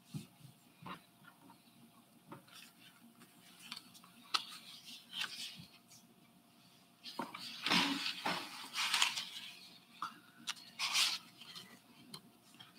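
Handling noise at a meeting table: scattered small clicks and light knocks, with a few seconds of rustling past the middle, over a faint steady hum.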